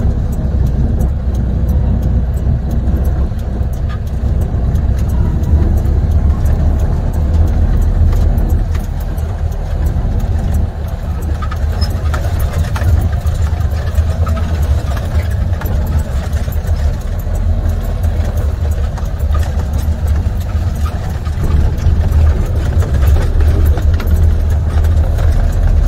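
Semi-truck diesel engine, an International with a MaxxForce 13, running at low speed while the truck rolls slowly, heard from inside the cab as a steady low rumble.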